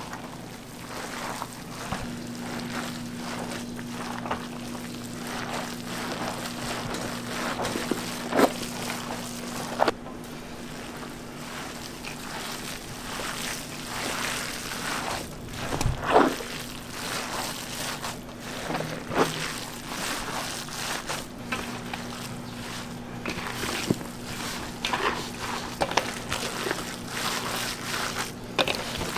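Gloved hands kneading and squeezing a large steel bowl of raw ground meat with chopped vegetables: continuous wet squishing and sloshing with a few louder slaps, the loudest about halfway through. A steady low hum sits behind it, dropping out for several seconds in the middle.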